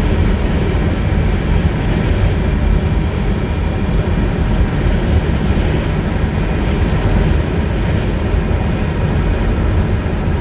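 Steady driving noise inside a REVA G-Wiz electric city car at about 50 mph into a strong wind: heavy low wind buffeting with tyre noise from a wet road, and no engine note.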